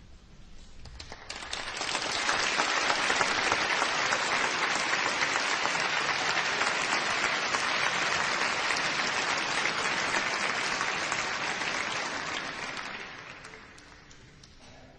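Concert audience applauding at the close of an orchestral piece. The clapping swells in over the first two seconds, holds steady, then dies away near the end.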